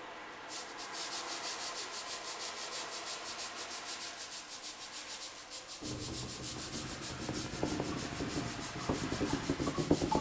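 Tornado sound effect: a fast, even swishing, pulsing several times a second. From about six seconds in a low rumble with scattered knocks joins it.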